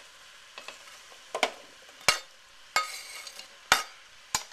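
Chopped onion tipped off a plastic cutting board into a stainless steel pot, with about five sharp knocks of the board and pieces hitting the pot, over a faint sizzle of the peppers already cooking in it.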